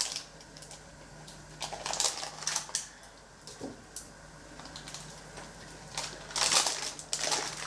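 Baking parchment rustling and crinkling in short bursts, twice, as a sheet of sponge cake is rolled up in a damp tea towel, over a faint steady hum.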